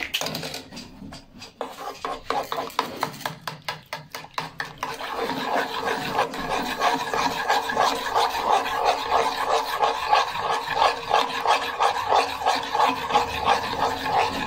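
Metal spoon beating eggs into milk in a metal pot, scraping and clinking against the pot. A few scattered taps at first, then from about five seconds in a quick, steady rhythm of strokes.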